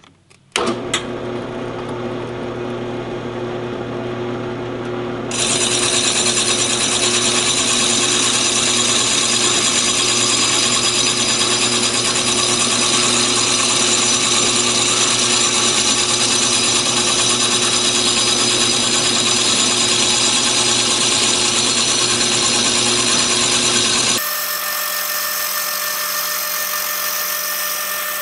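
Drill press and motorized turntable running, then about five seconds in an abrasive honing brush goes down onto the spinning motorcycle brake disc, adding a steady grinding hiss over the motor hum. Near the end the sound changes suddenly to a thinner, higher whine with the low hum gone.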